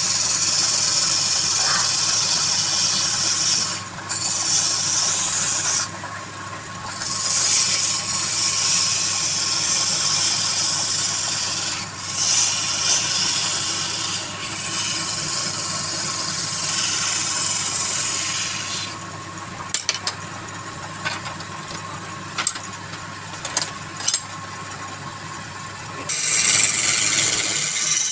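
Wood lathe running with a steady motor hum while a turning tool or abrasive is held against the spinning wood, making a loud rasping hiss in long passes of several seconds with short breaks between them. From about 19 to 26 seconds the hiss drops away, leaving the hum and a few light ticks, then a new pass starts near the end.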